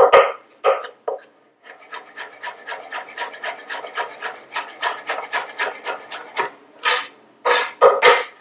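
Chef's knife cutting a pear into matchsticks on a wooden cutting board: a few hard knocks, then a quick even run of about four cuts a second, and several louder chops near the end.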